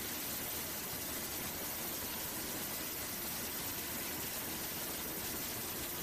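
Steady rushing noise of an aircraft's engine and the wind past it, an even hiss over a low rumble with no change.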